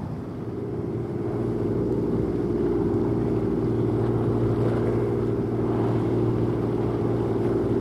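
An engine drone, a low steady hum with a higher tone above it. It grows louder over the first couple of seconds, then holds steady.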